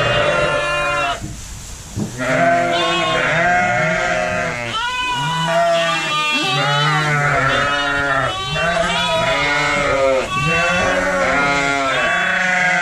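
A flock of ewes and lambs bleating all at once, many calls overlapping at lower and higher pitches, with a short lull about a second in: ewes and lambs calling to find each other after being let back together.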